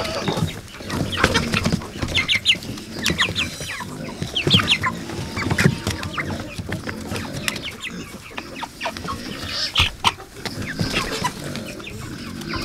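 Cornish Cross meat chickens clucking and giving many short, high calls while they feed, mixed with quick clicks and taps of beaks pecking at the feed and ground.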